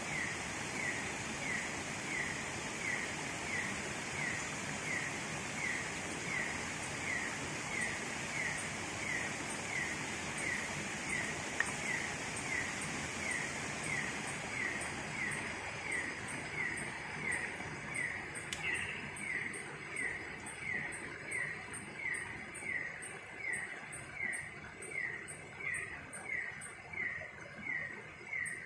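Night-time animal calls: a steady series of short, slightly falling chirps, about three every two seconds, joined about halfway through by a second, higher and faster chirping. Running water rushes underneath and fades toward the end, with one sharp tick near the middle.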